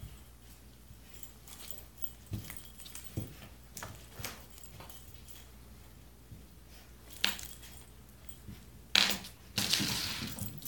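Two cats play-fighting on a hardwood floor: scattered soft thumps and scuffles of paws and bodies on the boards, with a sharp knock and a louder burst of scuffling near the end as they break apart.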